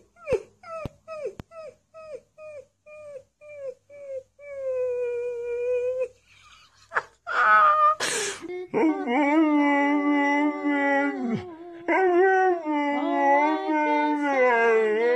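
A husky puppy gives a run of short yips, two or three a second and each dropping in pitch, then one brief howl. Then an adult dog howls in long, low, wavering howls.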